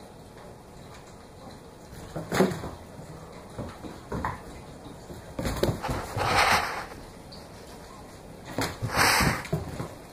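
A boxer puppy's paws scrabbling and thudding on a bare wooden floor as it chases a laser dot, in four short bouts of scuffling.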